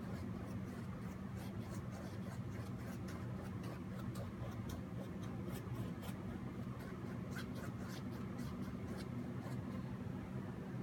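Short, irregular scratchy strokes of a brush working on the painting surface, over a steady low hum.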